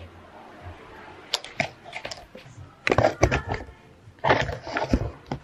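A camera being handled and set down, giving scattered clicks and knocks with louder clattering bumps about three seconds in and again near the end.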